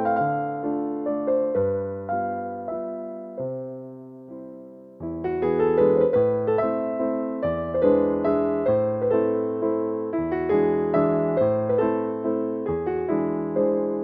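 Background music: a gentle piano tune of struck notes and chords, fading softer a few seconds in and picking up again about five seconds in.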